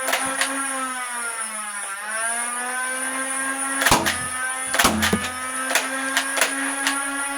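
Nerf Ultra blaster's flywheel motor whirring steadily with a high whine; its pitch sags and comes back up about two seconds in. Two loud knocks about four and five seconds in are followed by quicker light clicks, the trigger being worked while a stuck dart keeps the blaster from firing.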